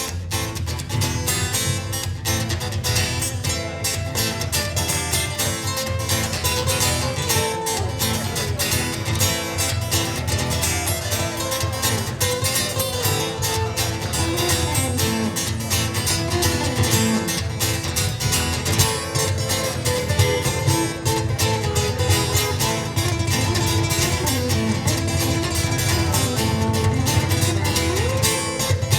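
Live acoustic duo of plucked string instruments, ukulele among them, playing a piece with strummed and picked notes over a steady bass.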